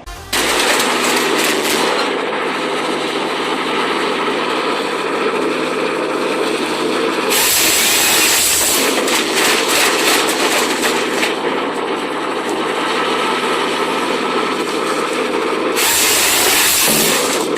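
A motor-driven machine running loudly and steadily, with two stretches of harsher, brighter noise, about seven and sixteen seconds in, as if working through material. It starts abruptly just after the beginning.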